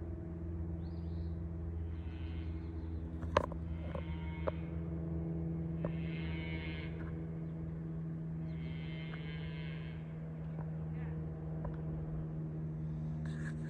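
Steady low mechanical hum of an idling engine, with a sharp click about three seconds in and four drawn-out higher calls, each about a second long, over it.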